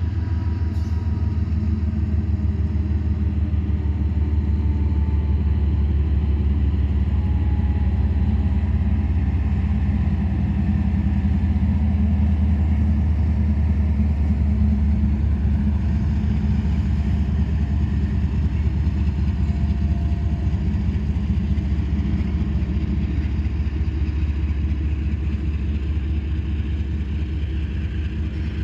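Canadian Pacific GE ES44AC diesel-electric locomotive passing at close range with its engine running steadily under power. The low rumble grows loudest about halfway through and eases slightly near the end as the locomotive moves away.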